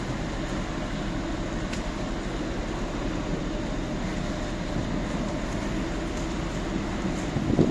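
The ro-pax ferry Abel Matutes passing close by, heard as a steady mechanical drone, with wind and water noise mixed in.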